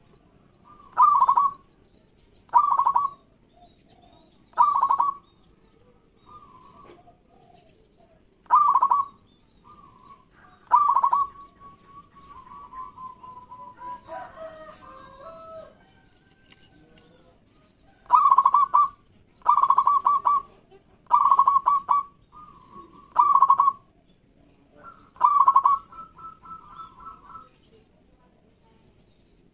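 Zebra dove (perkutut) cooing: about ten loud, short coos, each a quick rattling run of notes, with softer, lower calling between them in the middle.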